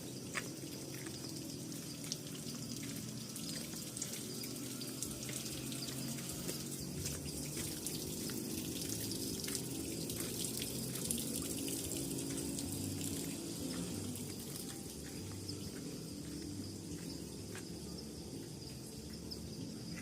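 Steady running water with a constant high insect trill over it.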